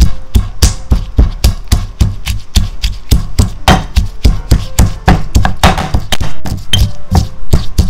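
Wooden pestle pounding fresh red chillies in a heavy stone mortar (a Thai krok): a fast, steady run of dull thudding strikes, about four a second.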